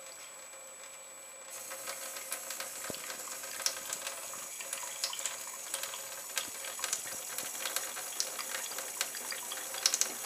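Thin stream of water running from a kitchen tap into a stainless steel sink, louder from about a second and a half in. Light, irregular splashy clicks come over it as a cat laps at the falling stream with its tongue.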